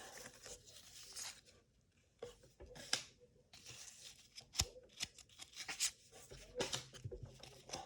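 1985 Topps baseball cards being handled and shuffled by hand: faint, scattered rustles and light cardboard taps and clicks.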